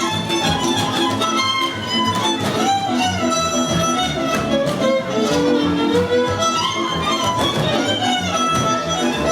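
Violin-led music: a lively melody with slides between notes over a steady, rhythmic string accompaniment.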